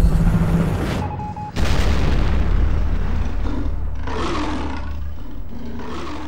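Dramatic intro sound effects: a loud low rumble that drops out briefly about a second in, then a deep boom with a long low rumble fading slowly, and two roar-like swells near the end.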